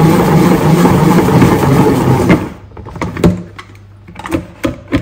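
Plastic salad spinner spinning freshly washed herbs dry with a loud, steady whirr that cuts off suddenly about two and a half seconds in. A few sharp plastic clicks and knocks follow as the spinner's lid and basket are handled.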